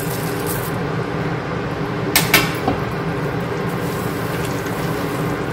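A spatula stirring fried dal and peanuts into thick jaggery syrup in a stainless steel pot, with a sharp knock against the pot about two seconds in. A steady low hum runs underneath.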